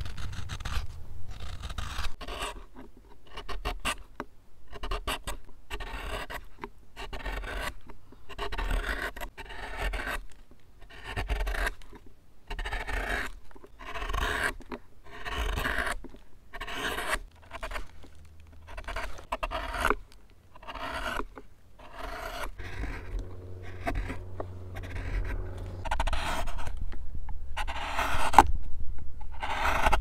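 Hand carving tools slicing shavings from wood, first a hook knife, then a bent gouge hollowing a bowl. It is a run of short scraping cuts, about one or two a second, growing louder near the end.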